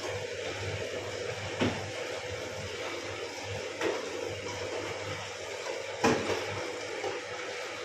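Kitchen utensils knocking lightly against a pan or dish four times, a couple of seconds apart, over a steady background hum; the knock about six seconds in is the loudest.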